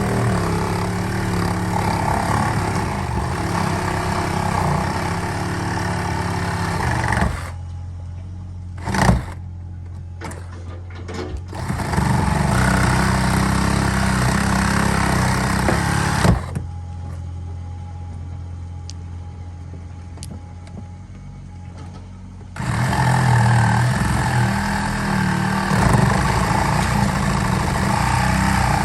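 An engine runs steadily throughout, getting louder and harder-working in three long spells of several seconds each, then dropping back to a lower hum between them.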